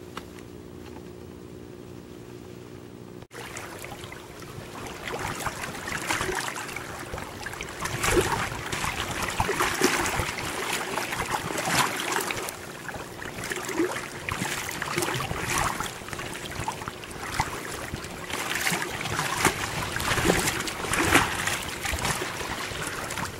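Oars of an inflatable pontoon boat pulling through river water, a louder splash-and-wash about every two seconds over steady water noise. It starts about three seconds in, after a faint steady hum.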